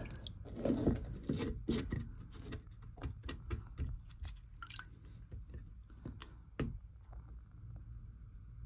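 Irregular drips and small sharp clicks at the float valve fitting in a cold-water header tank, over a low steady hum.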